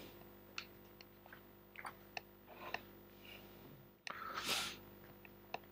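Near silence at a close microphone, with faint scattered clicks and a soft breath a little after the middle.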